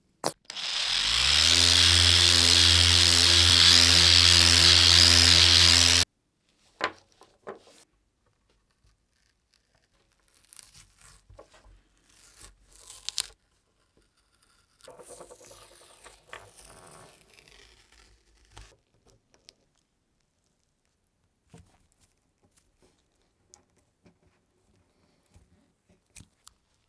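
A small electric power tool spins up and runs steadily for about five seconds, then cuts off suddenly. Afterwards come quiet scraping and rustling noises from handling, with scattered clicks.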